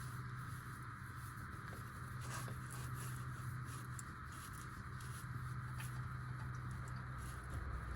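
Faint scratchy clicks and scraping of an oil filter being worked loose on its long thread, over a steady low hum.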